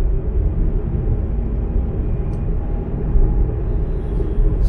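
A car being driven on the road, heard from inside the cabin: a steady low rumble of engine and tyre noise.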